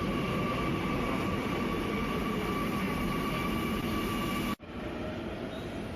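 Kochi Metro train running: a steady rumble with a high, even electric whine. About four and a half seconds in it cuts abruptly to a quieter stretch of steady noise.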